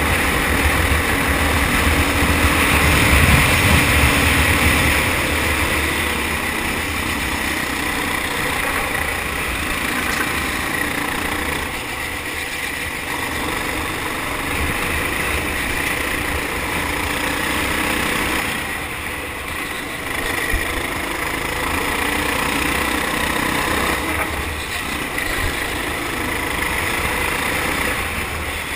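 Four-stroke kart engine running hard on track, heard from on board the kart. It is loudest in the first few seconds and eases off a few times along the way.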